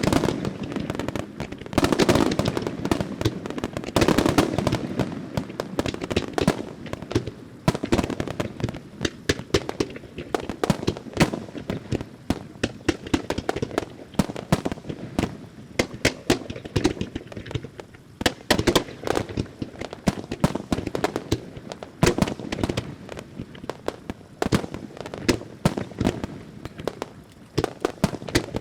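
Extra-large starmine fireworks barrage: a rapid, unbroken run of bangs and crackling reports, with heavier booms in the first few seconds.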